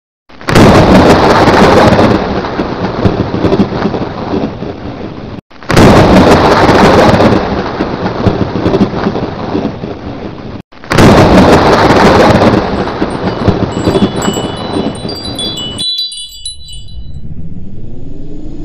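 Three thunderclap sound effects about five seconds apart, each a sudden crack trailing off into rumble, then a twinkling chime effect. A low rising tone begins near the end.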